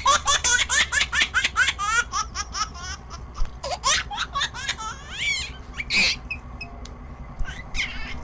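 High-pitched laughter in a quick run of short laughs, about five or six a second for the first two to three seconds. It then thins out to scattered laughs, with a louder one about six seconds in.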